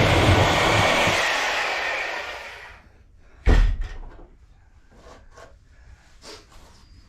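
Power saw with a wood-cutting blade running through the floor decking, then released and winding down over about two seconds. A loud thump follows about three and a half seconds in, then a few light knocks.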